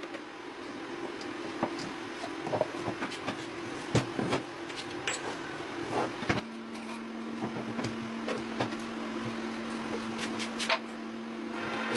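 Scattered light knocks and clicks over a steady hum, the hum dropping abruptly to a lower pitch about six seconds in.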